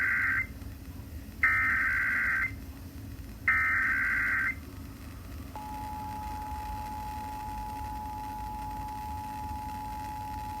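Emergency Alert System header data over radio: the end of one burst, then two more bursts of about a second each, the three-times-repeated digital (SAME) code that opens an alert. About five and a half seconds in, the steady two-tone EAS attention signal (853 and 960 Hz together) begins and holds.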